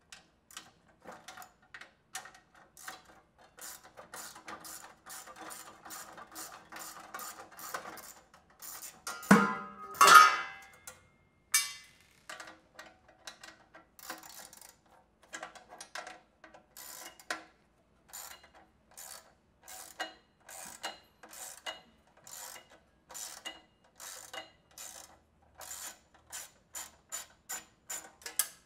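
Socket ratchet clicking in short strokes, about two clicks a second, as screws are backed out of the sheet-metal back of a drinking fountain's refrigeration radiator. A few louder metallic clanks come about a third of the way through.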